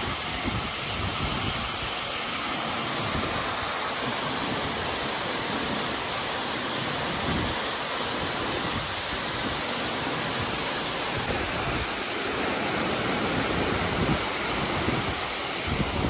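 Steady, even rush of a waterfall: water coming down with great force into a pool below.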